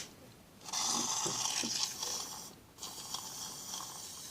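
Aerosol shaving-foam can spraying in two hissing bursts, the first loud and lasting nearly two seconds, the second quieter after a brief pause.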